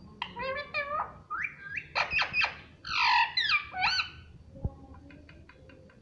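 Indian ringneck parakeet calling: a run of short squawks and chattering calls with sliding pitch, loudest about three seconds in, followed by a few faint ticks near the end.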